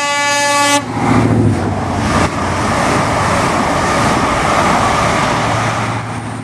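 Class 43 HST power car sounding the low note of its two-tone horn, which ends about a second in. The train then runs past with a loud, steady rush of wheels and a low engine hum.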